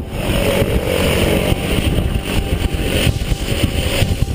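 Engine and propeller of a small jump plane running, with heavy wind buffeting from the prop blast on the helmet camera's microphone.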